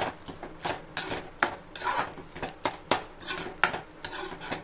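Slotted metal spatula stirring thick mango pachadi in a metal kadai, clinking and scraping against the pan about three times a second, as the added cane sugar is stirred in to dissolve.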